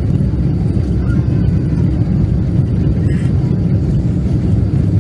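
Loud, steady low rumble inside an airliner cabin from a jet engine running with its cowling torn off in flight, the sign of an in-flight engine failure.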